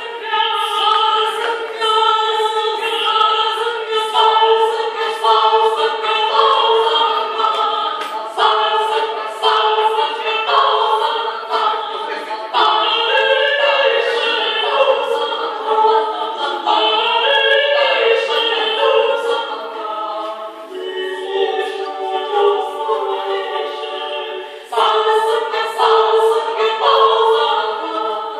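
Women's vocal ensemble of five singing a cappella in harmony, with a held lower note sustained beneath the moving upper voices.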